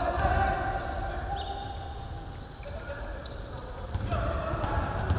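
A basketball being dribbled on a gym floor, a run of repeated bounces, with short high squeaks of sneakers as players run and cut on the court.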